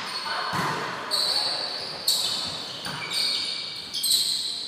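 Volleyball rally in an echoing sports hall: the ball is struck several times, each hit a sharp slap that rings on in the hall, with players' voices calling and high squeaks in between.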